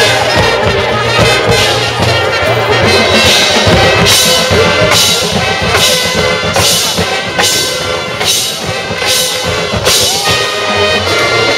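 High school marching band playing its field show: brass ensemble with drumline and front-ensemble percussion. From about four seconds in, sharp percussion hits land on a steady beat, a little under a second apart.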